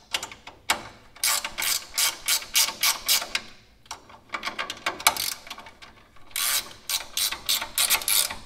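Hand ratchet wrench clicking in quick runs of back-strokes, three runs with short pauses, as nuts on the front shock's top mount are run down.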